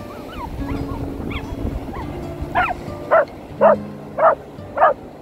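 A dog barking in a steady series, five barks about half a second apart starting about halfway in.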